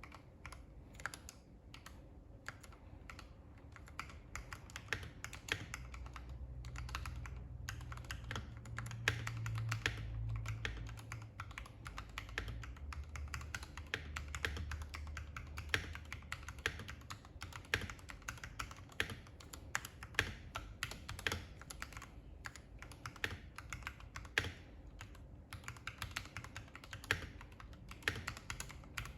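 Continuous typing on a custom full-size keyboard with lubed Gateron Ink Yellow linear switches in an aluminium plate under MT3 Dasher keycaps: a dense, uneven stream of keystroke clacks. A faint low hum sits underneath from about six to sixteen seconds in.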